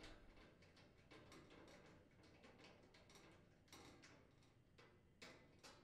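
Faint, irregular ticking of a hand screwdriver backing a screw out of a dryer drum stop, a few slightly louder ticks near the end.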